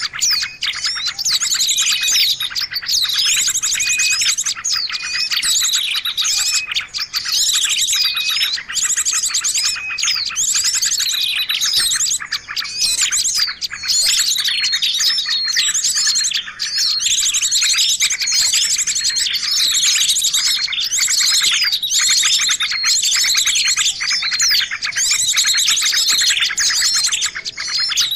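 A dense, unbroken chorus of many small songbirds chirping, whistling and trilling over one another in high, quick calls: a mixed lure recording made to draw small birds in for trapping.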